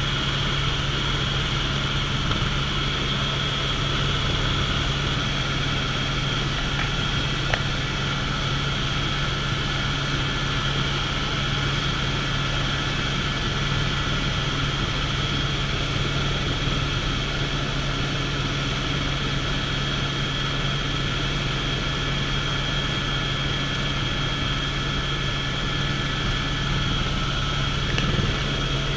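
Helicopter in flight heard from inside the cabin: a steady drone from the rotor and engine with a steady high whine over it.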